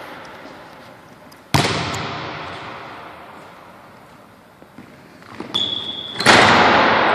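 Basketball bounce on a gym floor about a second and a half in, then quick steps and a short high shoe squeak leading into a loud bang as the ball is slammed through the rim in a one-handed dunk. Each impact rings on with a long echo in the gym.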